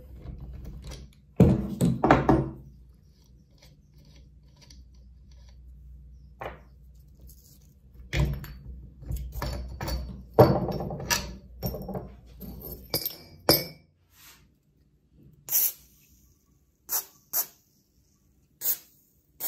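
Metal hand-tool work on a bench grinder's wheel arbor: a socket wrench on the arbor nut, with irregular knocks and clatter of steel parts as the nut, flange and grinding wheel come off. Several short, sharp sounds follow near the end.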